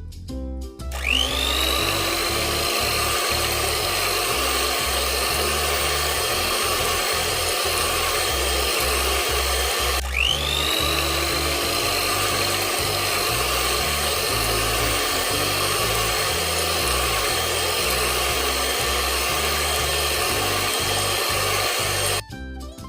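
Electric kitchen mixer running at a steady high speed, whining up to speed about a second in, stopping briefly and spinning up again near the middle, and cutting off shortly before the end. Background music with a steady bass line plays underneath.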